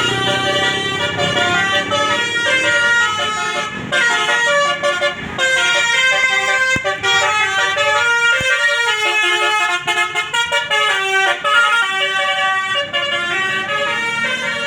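A bus's Basuri multi-trumpet 'telolet' air horn playing a fast melody, its notes stepping up and down in pitch in a continuous run.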